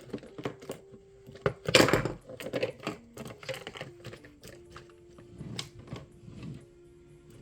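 Small objects being handled, a quick irregular run of light clicks, taps and clatter, loudest about two seconds in.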